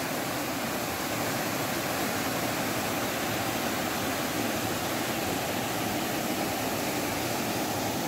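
Steady rush of the Leghvtakhevi waterfall, water cascading over rocks into a pool.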